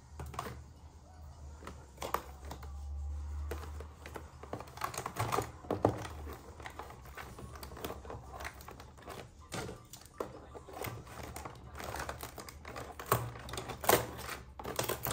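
Irregular clicking and tapping of small plastic toys and packaging being handled, with some crinkling.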